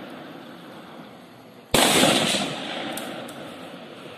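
A single loud rifle shot a little under two seconds in, its echo dying away over the next couple of seconds. The fading tail of an earlier shot is heard at the start.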